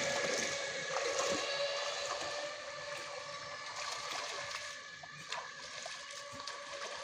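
Pond water sloshing and splashing as a man wades in and hauls in a cast net, with a few sharper splashes, one about a second in and another near five seconds. Steady high-pitched tones carry on underneath throughout.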